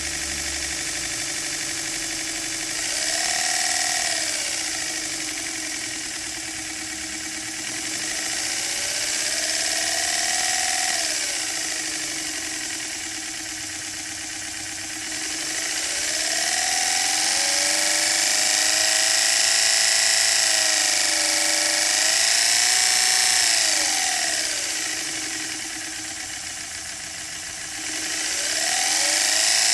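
A paper strip flaps against four masking-tape tabs on a spinning cardboard disc, making a buzzing imitation of a four-cylinder engine. The pitch rises and falls four times like throttle blips, with one long held rise in the middle, over a steady low hum.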